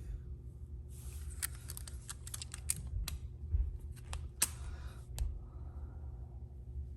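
Metal sockets being handled in a toolbox drawer: a quick, uneven run of sharp clicks and clinks, starting about a second in and stopping about five seconds in.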